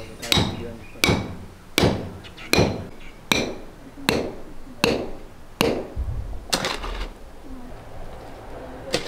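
Small hand hammer striking repeatedly, about nine evenly spaced blows under a second apart, each with a short metallic ring, tailing off into quieter sounds after about seven seconds.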